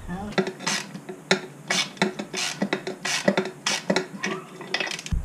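Irregular sharp metallic clinks and scrapes from handling an aluminum turbo charge pipe while a fitting is screwed into its freshly tapped threads.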